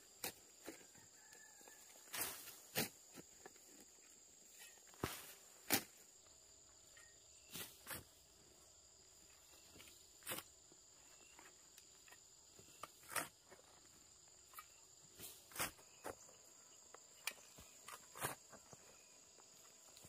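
Steel shovel blade chopping and scraping into clay soil while a pit is dug, an irregular thud every second or two. A steady high insect drone runs behind it.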